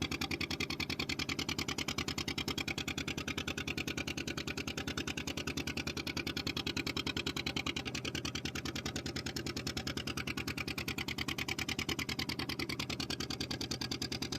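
A fishing boat's engine running at a steady speed, with a rapid, even pulsing beat.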